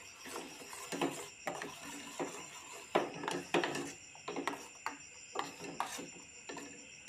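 Metal spoon stirring and scraping a thickening soap mixture in a steel pot: irregular scrapes and clinks, about one or two a second.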